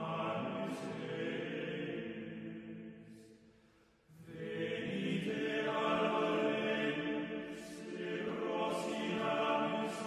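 Choral music with long held notes in several voices. It fades almost away about three to four seconds in, then swells back and holds.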